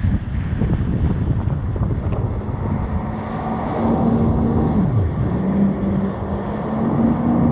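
Jet ski engine running over the water, its pitch dipping and rising again about five seconds in. There are heavy wind buffeting and water splash on a GoPro microphone.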